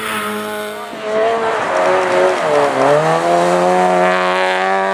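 Olsbergs MSE Supercar Lites rallycross car's engine revving hard as the car slides on snow. The revs dip about halfway through, then climb and hold.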